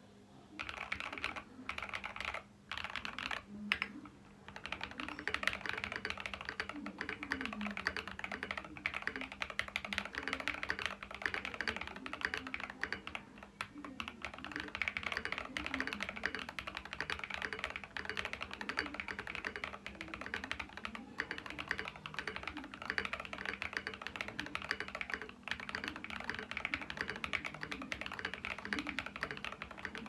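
Tokyo60 mechanical keyboard with Zaku switches being typed on: a few separate keystrokes, then steady, fast typing from about four seconds in, a continuous run of key presses.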